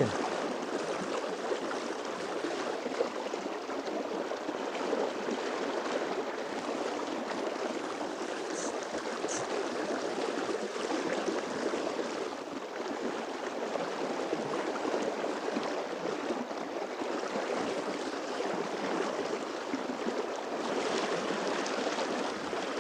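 River water rushing and burbling steadily: a fast spring river running fairly high.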